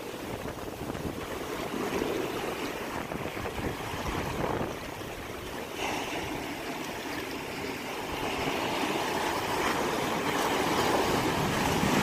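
Ocean surf washing in over and between large rocks, a steady rush of foaming water that swells and eases, building toward the end.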